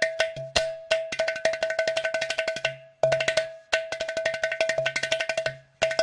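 Closing-credits music: fast percussion with many sharp strokes over a steady ringing tone and short low notes beneath. It drops out briefly about three seconds in, then resumes.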